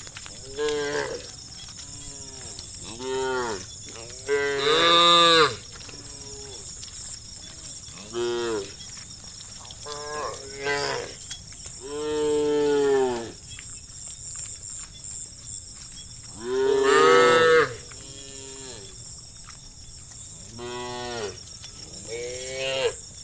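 Cows of a herd mooing, calling to one another: a dozen or so separate moos, each rising then falling in pitch. Two are louder than the rest, one about a fifth of the way in and one past the middle, with a long moo between them.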